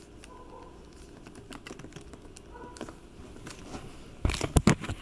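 Typing on a MacBook Pro laptop keyboard: scattered soft key clicks. Near the end comes a short burst of louder rustling and knocks as a load of clothes is handled.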